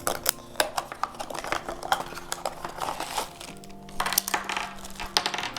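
Toy blind-bag packaging crinkling and small plastic pieces clicking as the pack is opened and handled by hand, a run of quick irregular clicks and rustles.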